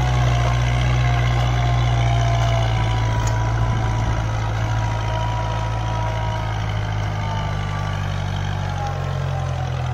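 Kubota MU4501 tractor's four-cylinder diesel engine running steadily under load as it pulls a fully opened disc harrow through the soil. It grows slowly fainter as the tractor moves away.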